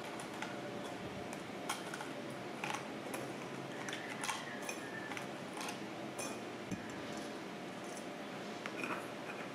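Used aluminium Nespresso capsules dropping into a glass jar, clinking against the glass and each other in scattered light clicks, over a steady faint hiss.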